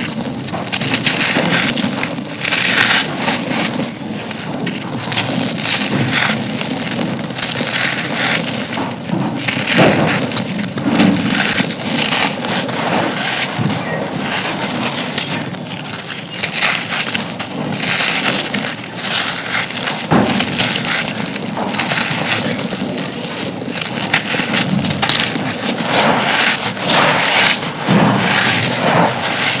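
Broken slabs of dry black concrete being crumbled and crushed, a dense, unbroken crunching made up of many small cracks.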